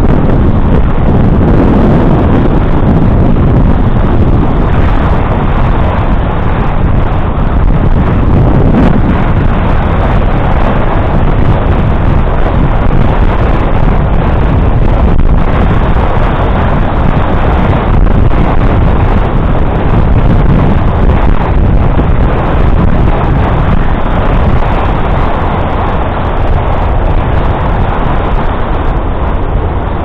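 Wind buffeting the microphone of a camera riding on a moving bicycle: a loud, steady, low rumble.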